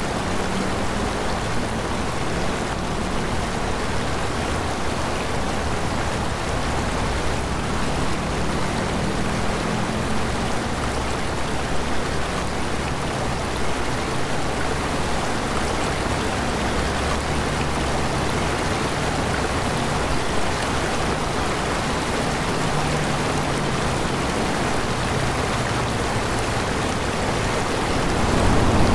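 Steady rush of a shallow mountain stream tumbling over rocks, getting a little louder near the end.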